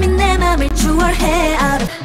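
K-pop dance song: singing over a steady beat with a heavy bass line. It breaks off near the end as a different track begins.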